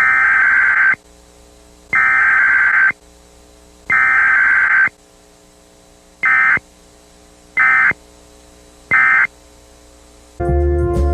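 Emergency Alert System SAME data bursts, the harsh buzzy two-tone modem warble of the digital header. Three bursts of about a second each, then three short blips: the header sent three times and the end-of-message code sent three times, as in a Required Weekly Test with no attention tone.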